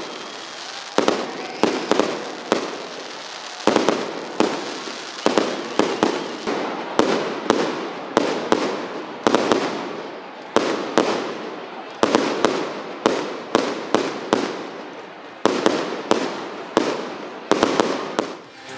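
Aerial fireworks display: a fast, uneven run of sharp bangs, about one or two a second, each trailing off before the next.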